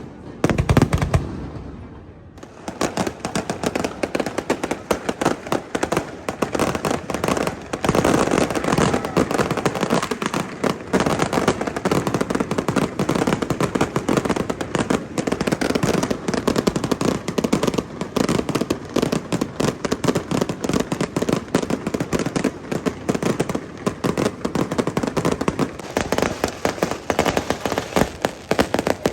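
Festival fireworks display: a low boom about a second in, then after a short lull a dense, rapid run of cracks and bangs, like crackling shells going off in quick succession.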